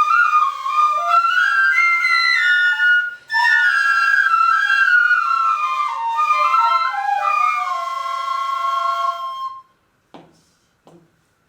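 Shinobue, Japanese bamboo transverse flutes, playing a slow, stepwise melody pitched in the eight-hon (hachi-hon chōshi) key, with a brief breath break about three seconds in. The playing stops at about nine and a half seconds and is followed by a few faint knocks.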